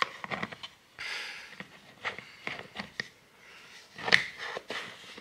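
Black plastic lid of an electric gel nail polish remover unit being fitted back on by hand: a run of small, sharp plastic clicks and short scrapes, with a cluster of clicks about four seconds in.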